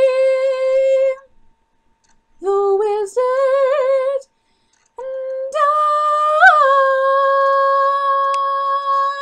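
A girl singing a musical-theatre song a cappella, reaching its closing phrase. A held note ends about a second in, a short phrase follows after a pause, and a long final note is held from about halfway, with a brief swell and a wavering vibrato near the end.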